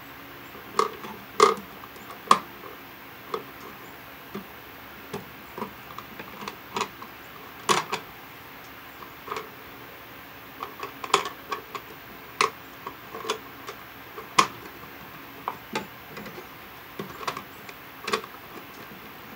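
Irregular clicks and taps as stiff solid-copper 14/2 Romex wires are pulled aside and pushed back into a plastic outlet box, with no steady rhythm.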